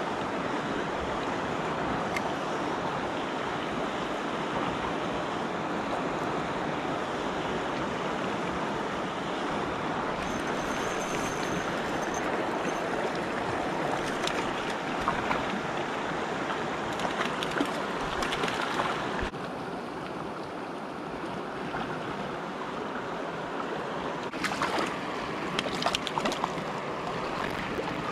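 River water flowing steadily, a continuous even rush. It drops a little in level suddenly about two-thirds of the way through, and a few sharp clicks come near the end.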